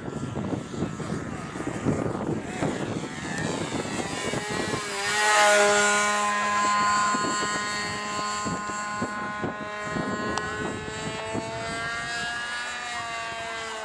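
Radio-controlled model airplane's engine passing overhead: it grows loudest about five seconds in, its pitch dropping as it goes by, then holds a steady tone and climbs again near the end. Gusty wind rushes over the microphone in the first few seconds.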